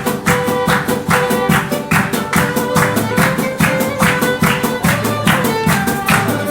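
A band playing music with a steady, quick beat and sustained pitched instrument tones.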